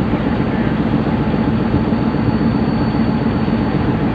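Steady low rumble with a noisy hiss over it, unchanging and without distinct knocks or horn blasts.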